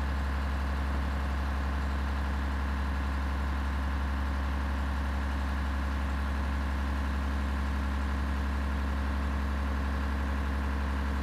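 Scania LS 111 tipper truck's diesel engine idling steadily, with a strong low hum, while the raised tipper body is lowered.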